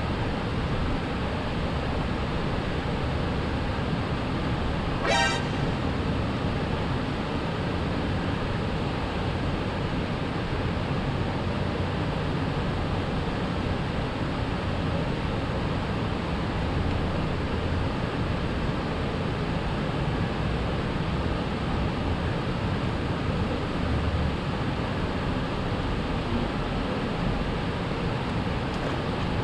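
Steady rushing noise of traffic on the bridge overhead and wind on the microphone, with one short vehicle-horn toot about five seconds in.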